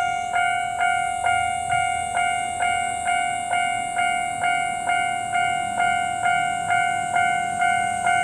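Japanese railway level-crossing warning bell ringing: electronic strikes repeating at about two a second, each the same pitch, with a steady high hiss underneath. The crossing is sounding because a train is approaching.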